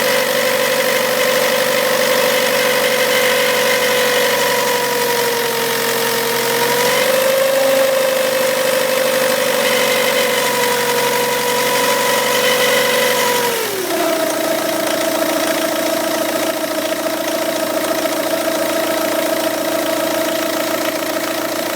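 2003 Peugeot 206 2.0 HDi diesel engine idling hot, with a loud steady whistling whine over it that the owner hears as half rubbing, half whistling, half rattling; about 14 seconds in the whine drops suddenly to a lower pitch. The noise remains with the accessory belt removed after a fresh timing-belt change, and the owner suspected the water pump or the damper pulley; replacing the timing-belt kit and water pump again more or less cured it.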